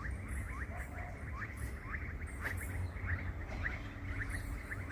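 A chorus of frogs calling: many short, downward-sliding chirps overlapping at about three or four a second, over a low steady rumble.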